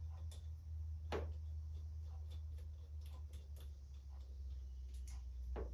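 Light, irregular metal clicks and taps as a steel lathe chuck and its bolts are handled and fitted together, over a steady low hum.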